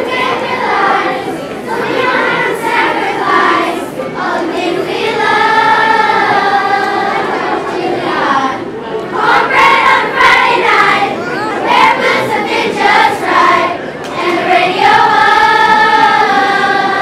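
Children's choir of fourth and fifth graders singing together, with long held notes about five seconds in and again near the end.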